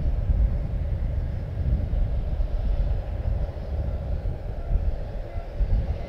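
Low, uneven rumble of airport apron noise with a faint steady hum above it.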